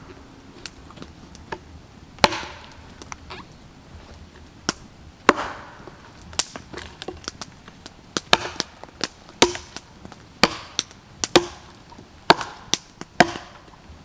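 Firewood being chopped: sharp blade strikes into wood, about one a second in the second half, with small knocks and clatters of split pieces between them.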